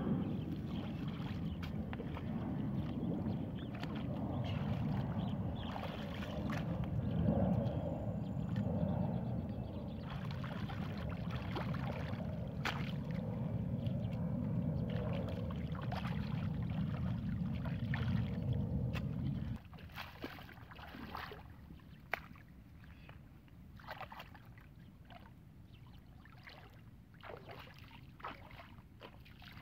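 Muddy water sloshing and splashing as hands pack mud around a bamboo basket trap set in a shallow, flowing channel. About two-thirds of the way through, the sound drops suddenly to a quieter water sound with scattered small clicks.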